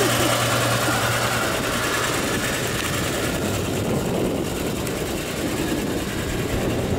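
The 1958 Chevrolet Apache's 235 cubic-inch Blue Flame inline-six running steadily.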